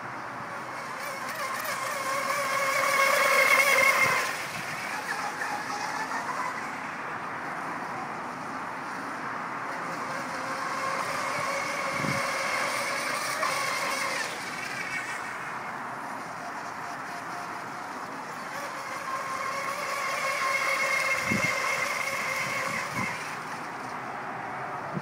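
Small RC model boat (a homemade 40 cm mini catamaran run on a 2S battery) with its electric motor and propeller whining at speed. The whine swells three times as the boat passes close and fades in between.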